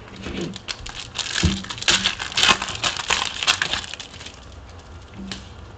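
Foil wrapper of a Panini Prizm trading-card pack crinkling as it is torn open and pulled off the cards: a dense run of crackles that dies down about four seconds in.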